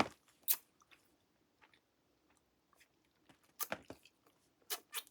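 A person eating fast food close to the microphone: a few short chewing and crunching sounds, bunched about half a second in, around three and a half seconds in and again near the end, with quiet between.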